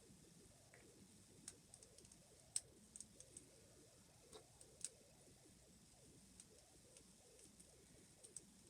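Faint, irregular clicks of a plastic twist-snake fidget's segments being turned, about ten over quiet room tone. The sharpest comes about two and a half seconds in.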